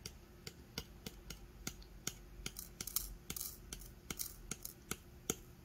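Light, irregular clicks and taps, several a second, as small gold pieces are tipped and scraped onto a digital scale's weighing tray.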